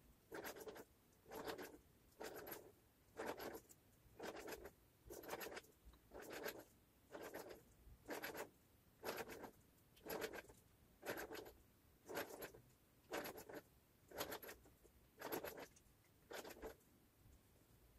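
Faint rasp of 0.2 mm enamelled copper wire drawn around a plastic coil former as a metal-detector search coil is wound by hand, one short scratchy stroke per turn about once a second. The strokes stop about a second before the end.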